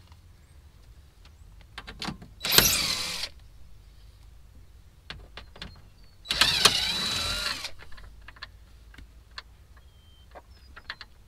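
DeWalt cordless driver backing out 7 mm dash bolts, running in two bursts of about a second each with its motor pitch rising and falling. Light clicks and taps of plastic trim and fasteners come between the bursts.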